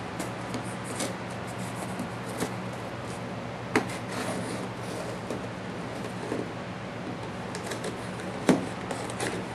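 A taped cardboard box being opened by hand: packing tape cut and peeled, with cardboard scraping and rustling, small clicks and two sharp knocks, over a faint steady low hum.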